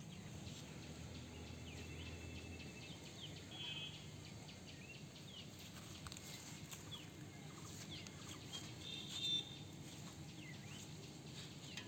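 Faint outdoor ambience with birds calling now and then, the clearest calls about a third of the way in and again near the end.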